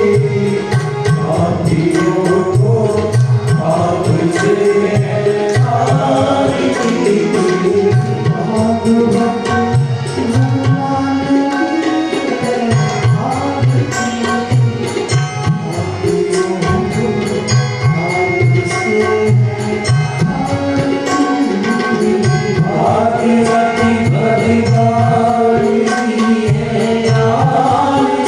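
Hindu devotional aarti hymn: voices singing to music with tabla accompaniment.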